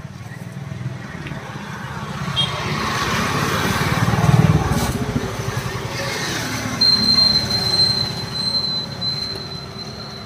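A heavy vehicle passing by, growing louder to a peak about four seconds in and then easing off, with a steady high-pitched squeal starting around seven seconds in.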